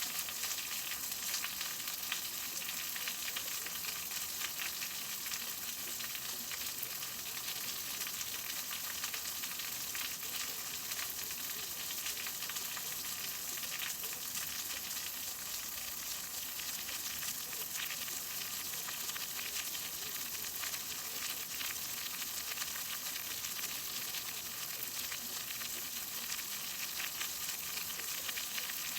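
Steady rain falling: an even hiss of many fine drop ticks that holds unchanged throughout.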